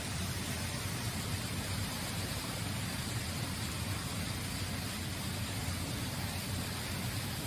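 Steady background noise with a low rumble, even throughout and without distinct events.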